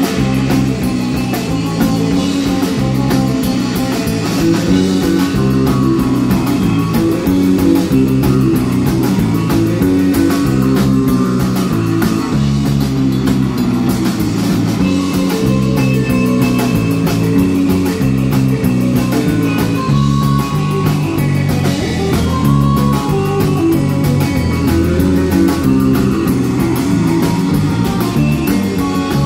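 A live instrumental surf-rock band playing loudly: electric guitar over a busy electric bass line and a drum kit.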